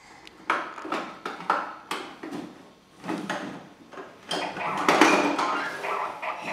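Hard plastic clicks and knocks as a toddler handles a plastic activity toy, followed about four seconds in by the toy's tinny electronic tune.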